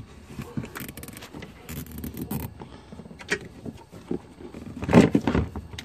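Hands working zip ties around a cable among plastic trim: rustling, scraping and small clicks, with short zipper-like ratcheting strokes about a second in and again about two seconds in, and a louder scrape about five seconds in.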